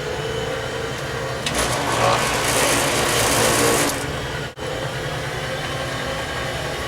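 Steady mechanical hum of air-conditioning equipment running. A loud rushing hiss comes in about a second and a half in and lasts about two and a half seconds.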